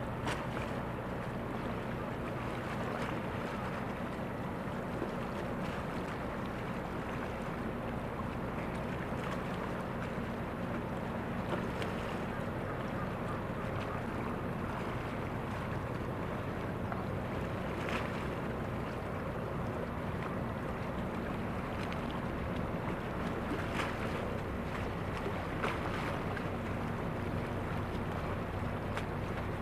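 The car ferry Ferry Hinase's diesel engines running with a steady low hum as the ship moves slowly through the water, with the wash of water and some wind on the microphone. A few faint clicks stand out now and then.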